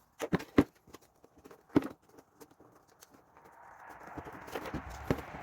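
Hand work on a plastic motorcycle rear fender and its indicator lights: scattered sharp knocks and clicks, then a stretch of rubbing noise with a few more knocks from a little under four seconds in.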